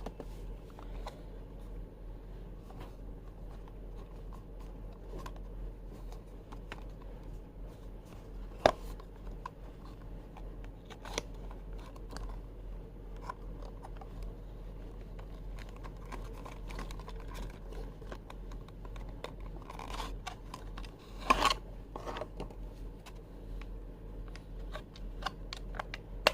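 Unboxing of a diecast model car: scattered scratches, rustles and small clicks of a cardboard box and plastic packaging being handled, with two sharper clicks about nine seconds in and about twenty-one seconds in.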